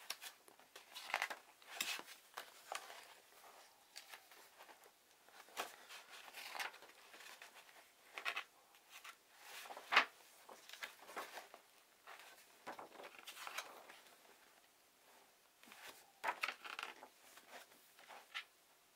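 Paper pages of a printed booklet being turned by hand: a run of short rustles and swishes, with one sharper page snap about halfway through.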